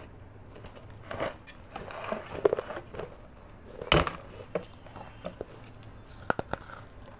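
Baked clay matka being handled and broken by hand: crackling and scraping of the clay, then one sharp snap about four seconds in as a piece breaks off the rim. A few short crunchy clicks follow near the end as a piece of the clay is bitten.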